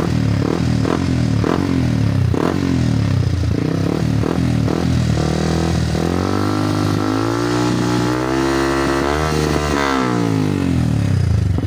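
Yamaha R15 V3's single-cylinder engine revved through an aftermarket Akrapovic M1 slip-on muffler: a run of short, sharp throttle blips, then from about halfway a long rev that climbs, holds high and drops back toward idle near the end.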